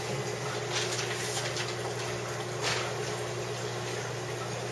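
Reef aquarium's water pumps and circulation running: a steady water hiss over a constant low motor hum, the water noise swelling briefly a few times.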